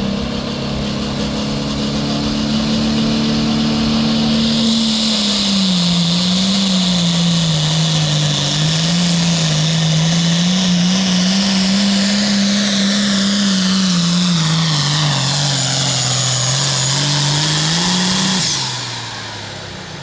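Turbocharged diesel engine of a John Deere Limited Pro Stock pulling tractor. It runs high at the line, then about four seconds in goes to full throttle with a loud turbo whine. Its note sags and rises as it drags the sled, and about eighteen seconds in the throttle is cut and the engine falls away.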